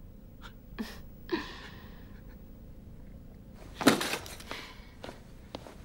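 Quiet room with a few faint clicks and a soft hiss, then, just before four seconds in, one sharp clatter as a razor and small metal objects are snatched up off a hard tabletop.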